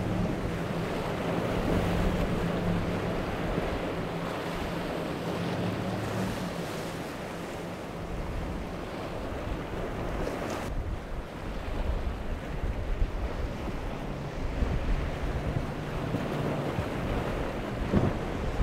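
Triple Yamaha outboard engines on a center-console boat running at speed, a steady drone under the hiss of spray and wake, with wind buffeting the microphone. A few sharp thumps come near the end.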